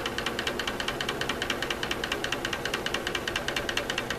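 Magnetic lab stirrer running at slow speed: a rapid, even ticking of about ten clicks a second over a faint low hum.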